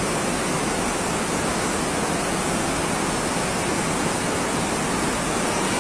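Rushing floodwater: a muddy river in spate and water pouring across the road, a steady, unbroken rush of noise.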